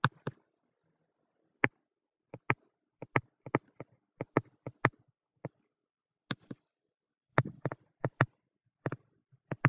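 Stylus pen tapping and clicking against a touchscreen while handwriting: a string of short, sharp clicks at irregular intervals, some in quick pairs.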